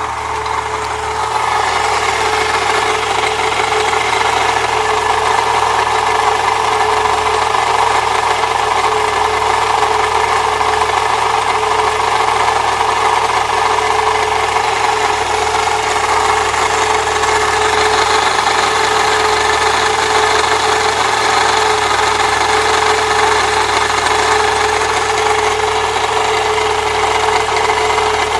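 1998 Saturn SL2's engine idling, with a steady scraping, grinding noise from the belt area that stays even with the A/C compressor bypassed by a shorter belt; the owner suspects the water pump. It grows louder over the first two seconds, then holds steady.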